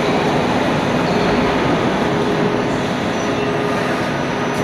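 Ceiling panel roll forming machine running, its steel forming rollers drawing a sheet-metal strip through; a steady, loud mechanical noise with a faint steady hum.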